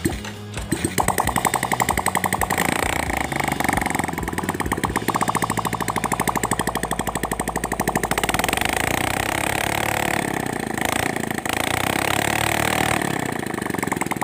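Honda C-series single-cylinder four-stroke motorcycle engine firing up and running steadily, with rapid, even beats. It is run with the valve adjustment cap open to check that oil now sprays up to the cylinder head after a blocked oil passage.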